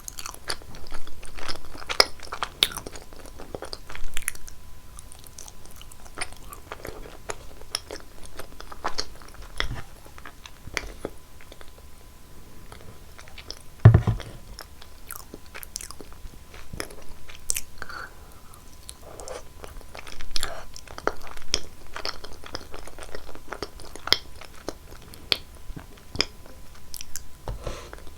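Close-miked eating sounds: bites and chewing with many short, sharp, crunchy clicks and wet mouth sounds, and one heavier thump about halfway through.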